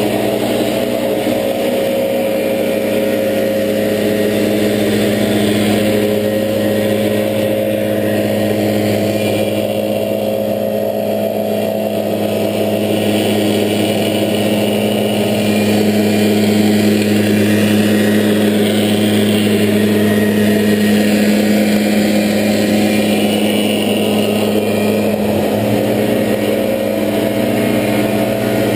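Gas backpack leaf blowers running steadily: a constant engine hum under the rush of blown air.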